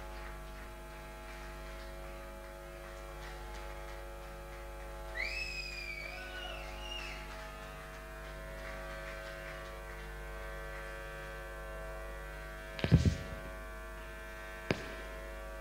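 Steady electrical hum and buzz from the band's amplifiers and PA, left on over an empty stage. About five seconds in comes a short wavering whistle, and near the end a loud thump, then a sharp click.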